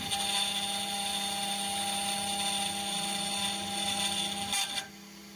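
Desktop CNC spindle (Makera Carvera Air) running at high speed with a steady whine as a small end mill cuts a pocket in an aluminum block. About five seconds in the sound drops off sharply to a fainter hum.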